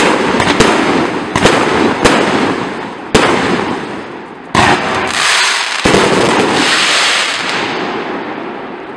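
A Hallmark 'Power House' 200-shot fireworks cake firing its last shots: about six sharp reports roughly a second apart, then a dense crackling haze from the bursting stars that fades away near the end.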